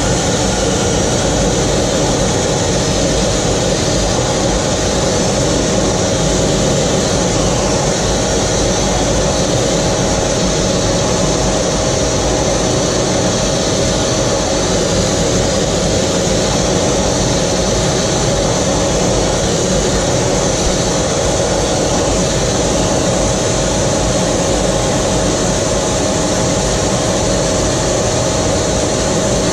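Steady jet engine and airflow noise heard inside the cockpit of a jet trainer in cruising flight, with a steady whine running through it.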